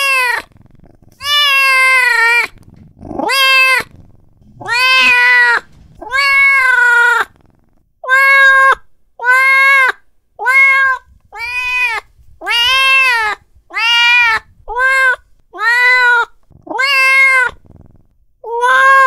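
Domestic cat meowing over and over, about fifteen drawn-out calls that each rise and fall in pitch. The calls are longer in the first half and come shorter and quicker later on. The calls are presented as the sound of an angry cat.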